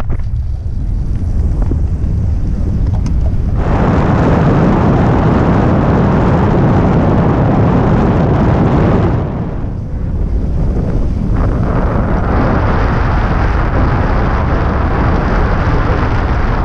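Gusty wind buffeting the microphone: a loud, low rumbling rush that eases twice, just after the start and for a couple of seconds about nine seconds in, then picks up again.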